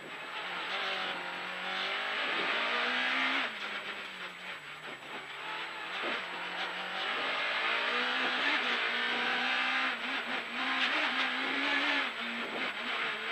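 Rally car engine heard from inside the cabin, pulling hard, its note holding then dropping and climbing again several times, over a steady noise of road and cabin.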